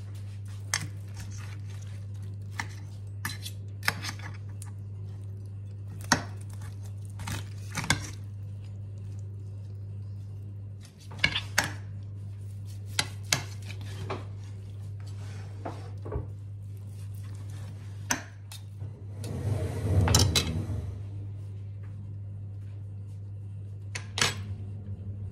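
Steel knife and fork clinking and scraping on a ceramic plate in scattered sharp clicks while a roast chicken is carved, over a steady low hum. About twenty seconds in there is a louder noisy burst lasting a second or two.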